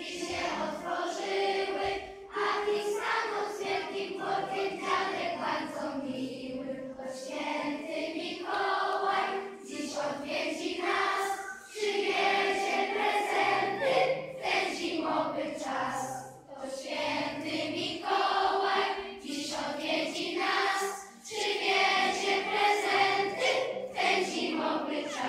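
A large children's choir singing a Christmas song together, in phrases with short breaks between lines.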